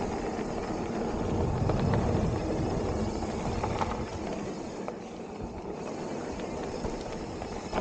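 Mountain bike riding down a dirt trail: 2.8-inch plus tyres rolling over dirt with a steady rumble, with scattered knocks and rattles from the bike over bumps.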